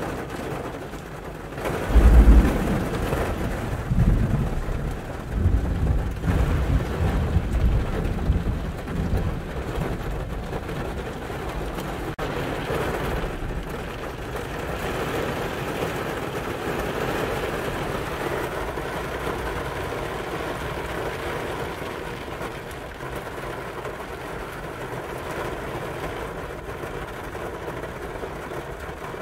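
Thunder heard from inside a car: a loud clap about two seconds in, then rolling rumbles for several seconds that die away. Steady rain falling on the car follows.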